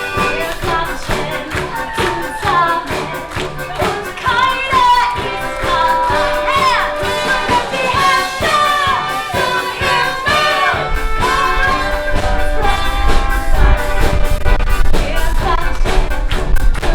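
Music with a sung melody; a heavy bass comes in about eleven seconds in.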